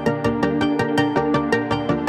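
Background electronic music with a fast, steady beat over sustained synth tones.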